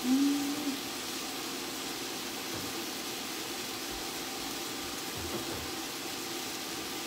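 Chopped onions, celery and bell pepper sizzling steadily in a pot on the stove, a constant hiss with a faint steady hum under it. A brief low hum-like sound, the loudest thing here, comes right at the start.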